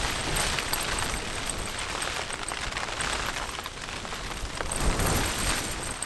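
Gale-force wind buffeting a Hilleberg Allak 2 tent, heard from inside, with the fabric flapping and rain beating on it. The wind rises and falls in deep surges, and the strongest gust comes about five seconds in.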